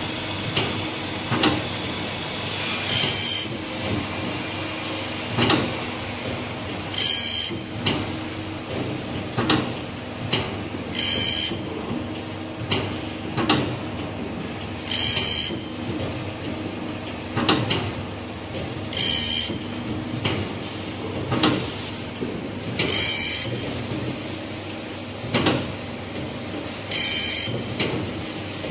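Band saw blade sharpening machine running its automatic cycle: a steady motor hum, a short high-pitched burst about every four seconds, and lower knocks of the mechanism in between, repeating evenly.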